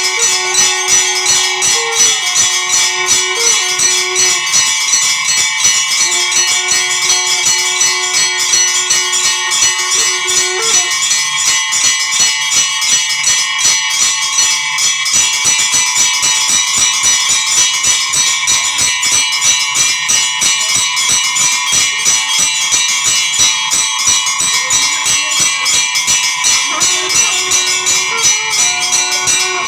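Temple bells rung rapidly and without a break: a dense, rhythmic clanging with steady ringing tones under it. A held lower tone sounds over the bells three times, for a few seconds each, near the start, in the first half and near the end.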